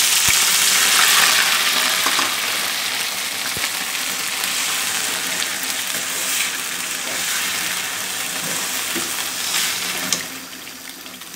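Loud, steady sizzling as water-soaked semolina hits hot ghee and melted sugar in a metal kadai and is stirred with a metal spatula, with a few light knocks. The sizzle drops away sharply about ten seconds in.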